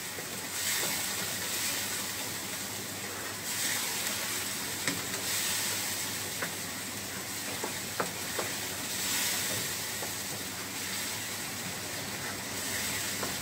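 Onion-tomato masala with turmeric, red chilli and salt sizzling as it fries in a nonstick frying pan, stirred with a wooden spatula. The sizzle swells every couple of seconds with the stirring, and the spatula clicks against the pan a few times.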